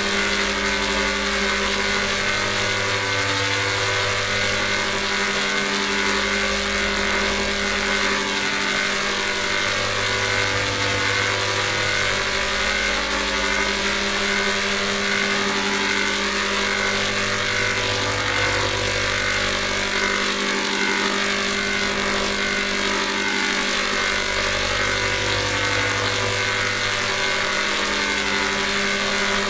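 A loud, dense electronic drone made of heavily processed, layered audio: many steady tones stacked over a noisy hiss, as in a 'G major' sound-effect edit built from pitch-shifted copies. A low hum underneath shifts between two pitches in a cycle that repeats about every seven to eight seconds.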